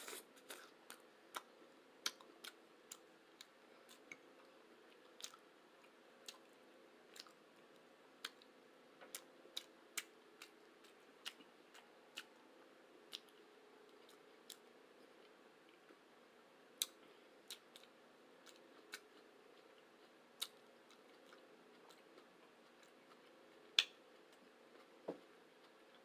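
A person chewing food close to the microphone: faint, irregular wet mouth clicks and smacks, roughly one or two a second, a few of them louder.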